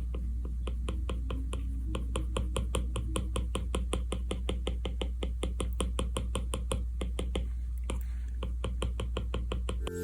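A rapid, fairly even series of light clicks or taps, several a second, over a steady low hum.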